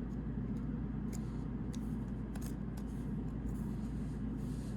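A few faint clicks and taps of trading cards being handled, over a steady low hum.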